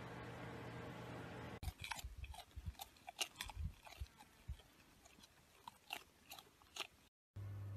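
A faint steady hum, then, about one and a half seconds in, irregular crunchy clicks and a few soft low thumps: an alpaca chewing.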